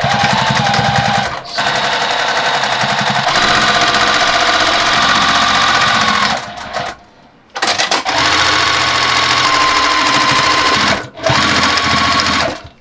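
Electric sewing machine stitching a seam through heavy workwear fabric in fast, even runs with a steady whine. It stops briefly about a second and a half in, pauses for about a second around the middle, stops again briefly near the end, and halts just before the close.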